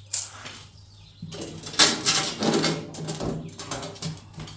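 Rustling and scraping handling noise, a short burst near the start and then about three seconds of denser rubbing and scraping, as the metal duct pipe is handled for measuring. A faint steady low hum runs underneath.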